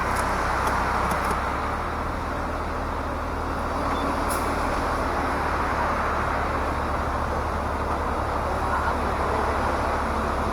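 Steady wind rush and road noise inside an open-top Daihatsu Copen L880K cruising at expressway speed, over a low, even drone from the engine and tyres.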